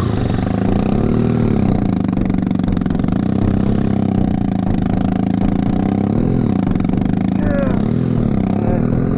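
A motor vehicle engine running steadily, its pitch rising and falling slightly several times as if lightly revved.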